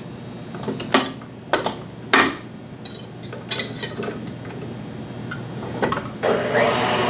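Clinks and clunks of a stainless steel bowl and wire whisk being fitted onto a KitchenAid bowl-lift stand mixer, then a little after six seconds the mixer's motor switches on and runs with a steady whine.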